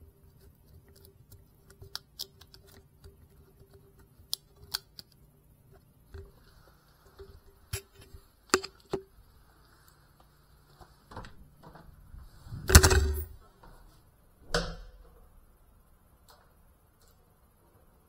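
A scatter of small clicks and knocks, with a loud knock about thirteen seconds in and a smaller one about two seconds later.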